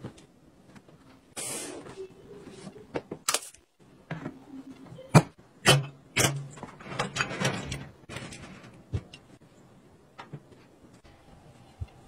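Plastic storage organizers being handled: a run of sharp clicks and knocks, with plastic trays scraping and sliding between them. The sharpest knocks come about five and six seconds in.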